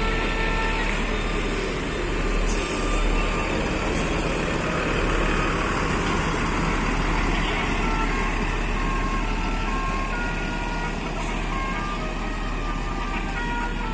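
Bus basuri telolet horn playing a tune of short, stepping high notes over steady bus engine and traffic noise. The notes come just after the start and again through the second half.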